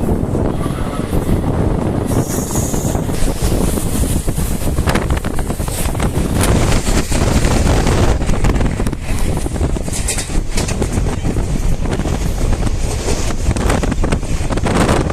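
Passenger train running at speed: a steady low rumble with irregular rattling and clatter, and wind buffeting the microphone.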